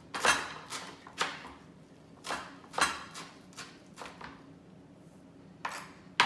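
Knife chopping fresh cilantro: a series of sharp, irregular strikes, about two a second, with a short pause about four and a half seconds in.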